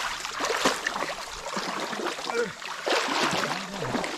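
Swamp water splashing and trickling with irregular small knocks as a bubu fish trap heavy with fish is handled in the water.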